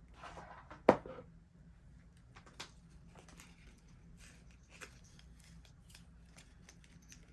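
Small craft-handling noises while hot glue is applied and a piece is pressed into place: one sharp tap about a second in, then faint scattered clicks and rustles over a low steady hum.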